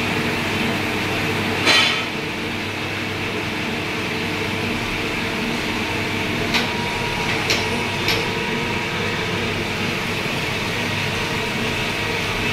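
Lathe running steadily with a hum, with sharp metal clinks: one about two seconds in, then three smaller ones between about six and eight seconds.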